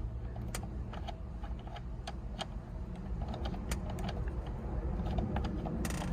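Scattered small metallic clicks and taps as the steering-wheel nut and hand tools are handled, over a steady low hum.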